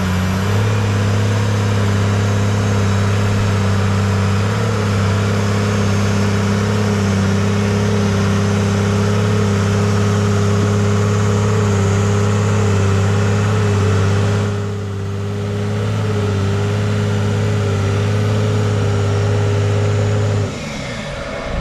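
Off-road vehicle's engine running hard at a steady high pitch under load, climbing a sand hill. Its note dips briefly about fifteen seconds in and cuts off abruptly near the end.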